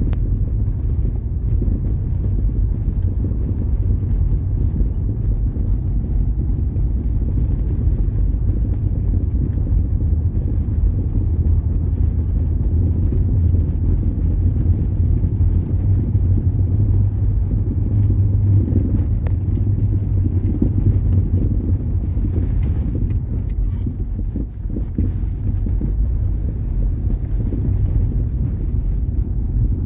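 Citroën Xsara Picasso on the move: a steady low road rumble with a few faint short knocks, the suspension rattle that points to worn suspension parts.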